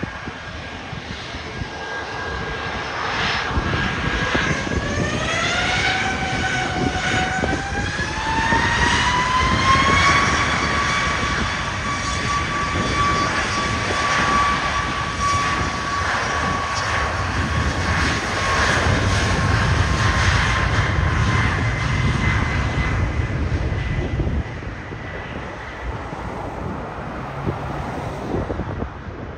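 Jet aircraft engines spooling up: a whine rises in pitch over several seconds, then holds steady at high power over a loud rumble. The rumble drops away near the end.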